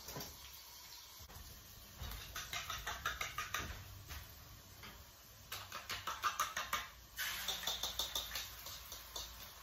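Fork beating eggs in a bowl: three runs of rapid clicking, about five or six strokes a second, each lasting a second or two.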